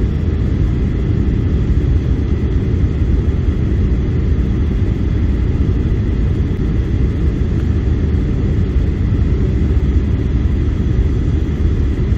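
Steady low rumble of a Boeing 737-800's cabin noise, its CFM56 engines and rushing airflow heard from inside the cabin, with no change in pitch or level.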